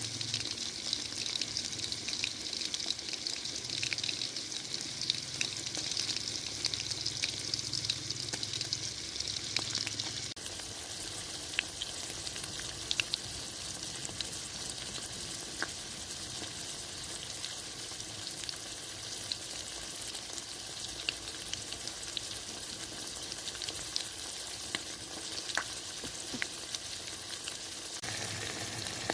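Fish frying in hot oil in a pan: a steady sizzle scattered with sharp pops and crackles. About ten seconds in the high hiss drops away and the frying goes on more evenly.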